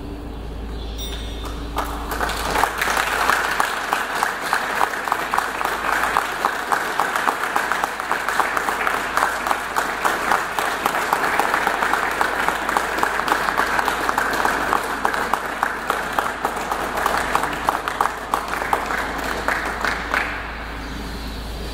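Audience applauding: clapping starts about two seconds in, holds steady, and stops abruptly near the end.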